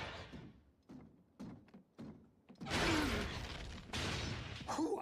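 Fight sound effects from an animated action show's soundtrack: a few scattered short knocks, then two longer bursts of crashing, impact-like noise about two and a half and four seconds in.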